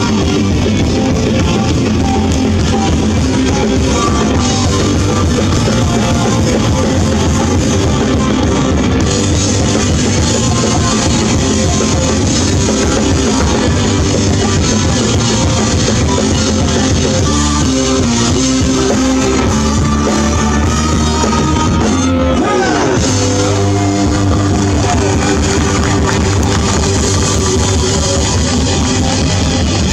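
Live rock band playing: electric guitar over a steady drum kit beat.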